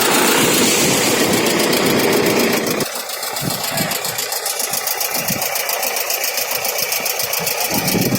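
A diesel tractor engine running steadily with an even, rapid beat. About three seconds in, its low rumble drops away, and it runs on lighter.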